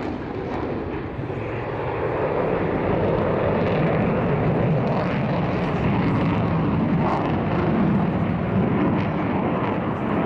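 Jet noise from a JASDF F-15J Eagle's two turbofan engines during a maneuvering display pass. It is a continuous deep rushing roar that dips slightly about a second in, then swells and holds steady.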